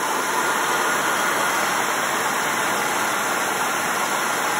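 A 1996 Ford F-150's engine running at a fast idle, heard from over the open engine bay as a steady, even rush with no clear pitch. It has not yet settled down to a normal idle after a hard start.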